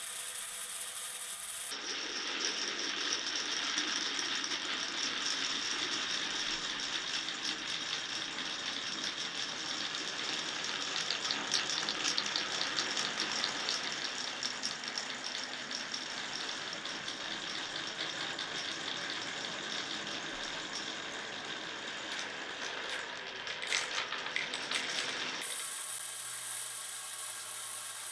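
Glass marbles rolling and clattering down wooden marble-run tracks, a continuous rattle with many small clicks. The sound changes abruptly about two seconds in and again near the end, when a hissier rolling sound takes over.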